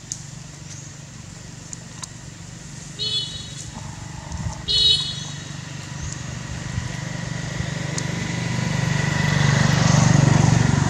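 A motor vehicle's engine drone grows steadily louder as it approaches, loudest near the end. Two short high-pitched squeals come about three and five seconds in.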